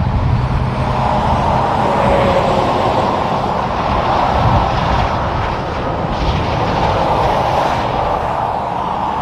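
Kenworth W990 log truck, loaded with pine logs, driving past on the highway: a steady diesel rumble mixed with tyre and road noise.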